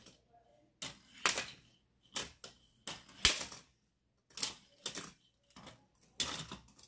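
Small plastic Lego robots pushed by hand, clacking and scraping against each other and the toy arena in short bursts of clatter, about six of them, with one sharp click a little past three seconds in.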